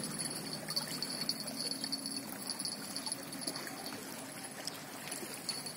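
Spinning reel clicking irregularly as it is cranked while a hooked crucian carp is played in, over a steady high-pitched tone.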